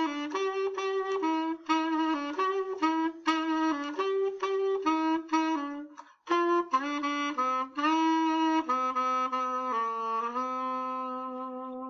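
Solo saxophone playing a melody of quick, short notes, breaking off briefly about six seconds in, then slowing into a few longer held notes, the last one sustained near the end.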